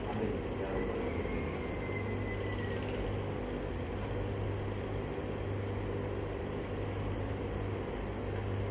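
Steady low mechanical hum over an even background of room noise.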